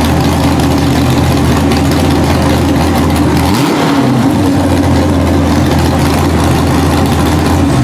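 Tractor's V8 engine running loud and steady, with a brief rev about three and a half seconds in. It is running cleanly after a carburetor repair, a needle and seat that had dried out and was dumping too much fuel.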